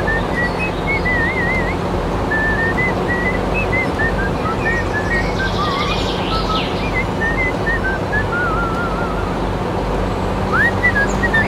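Background music with a whistled tune of short notes and wavering trills, over a steady noisy hum.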